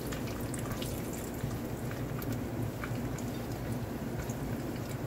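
Bacon frying in its grease in a wok skillet: a steady sizzle with frequent small crackles and pops.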